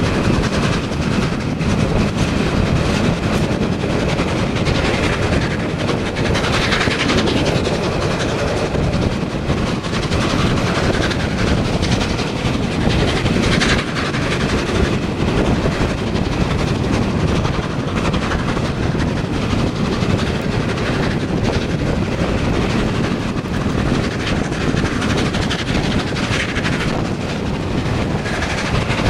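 Steady rush of wheel and wind noise from a passenger coach of a steam-hauled train running at speed, with a clickety-clack from the wheels on the track, heard at an open carriage window.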